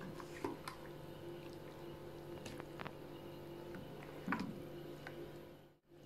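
A spoon scooping thick, moist vegetable-and-fish chorchori out of a metal pot into a plastic box: soft squishing with a few light clicks of the spoon, over a steady low hum.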